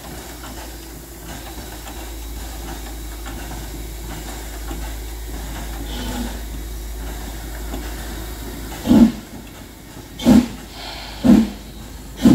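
Metre-gauge 2-10-2T steam tank locomotive 99 7237-3 of the Harz narrow-gauge railway, steam hissing from its cylinders as it stands and then starts off. About nine seconds in come the first exhaust chuffs, slow and heavy, roughly one a second.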